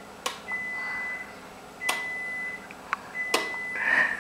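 An electronic beeper sounding a steady high tone in repeated beeps of under a second, about one every second and a third, with a few sharp clicks in between.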